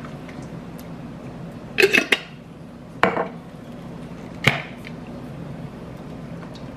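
A jar of pasta sauce clinks and knocks against a cooking pot as it is emptied into it: three short knocks, about two seconds in, at three seconds and at four and a half seconds, over a steady low hum.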